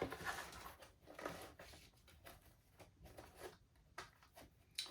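Faint rustling and scattered light clicks of a door-lock package being opened and its parts handled, with a sharper click near the end.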